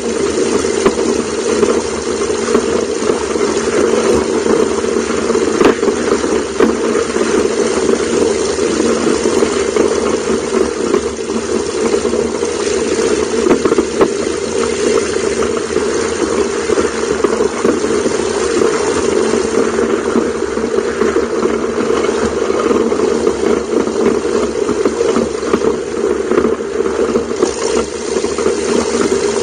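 Zenith STOL CH750 light aircraft's engine idling, its propeller turning slowly as the plane taxis. The running sound is steady throughout.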